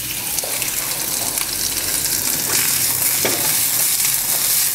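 Sliced fennel frying in hot oil in a skillet over a medium flame: a steady sizzle, with a few faint ticks.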